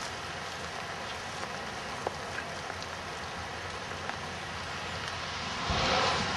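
Steady rain hiss with a few scattered drop ticks, swelling into a louder rush just before the end.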